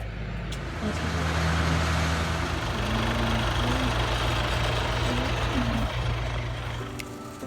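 Diesel engine of farm machinery running steadily close by, with a hiss over it. The engine grows louder about a second in, and its note shifts slightly a few times before it fades near the end.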